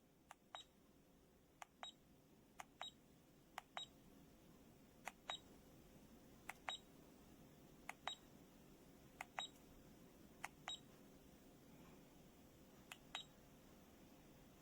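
MiLESEEY digital laser distance meter beeping: pairs of short, high electronic beeps repeat about every second and a half.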